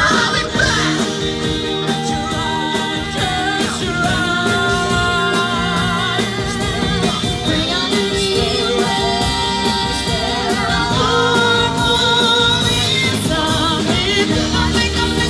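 Live rock band and cast singing a musical theatre number: several voices sung into microphones over electric guitars and drums with a steady beat.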